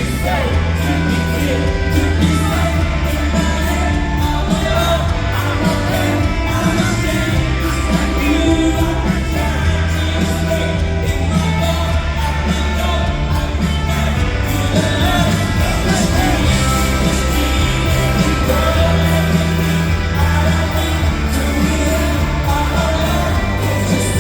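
A rock band playing live with a lead singer: continuous, loud music with a steady bass line under the vocals.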